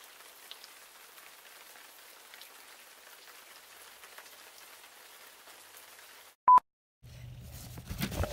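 Light rain pattering steadily on dead leaves, with scattered small drips. About six and a half seconds in, a short, loud electronic beep cuts in, followed by a brief silence; then a low rumble and a rustle and thump as a fat-tyre unicycle rides over a pile of dry brush near the end.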